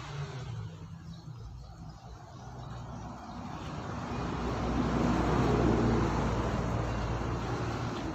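A motor vehicle driving past, its engine hum and road noise swelling to a peak about five to six seconds in and then fading.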